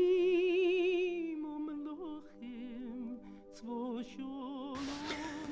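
A solo voice singing long, slow held notes with a wide vibrato, then moving through shorter notes, over a steady low hum. It sounds like an archival vocal recording being played.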